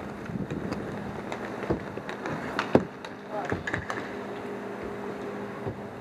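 Roller hockey play: a steady rink background broken by a handful of sharp clacks of sticks and puck, the loudest near the middle, with a steady low hum setting in about halfway.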